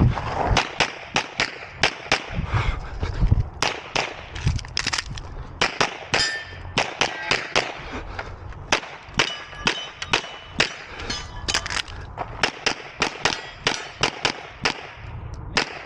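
Rapid semi-automatic handgun fire, dozens of shots mostly in quick pairs, with steel targets ringing briefly after some hits.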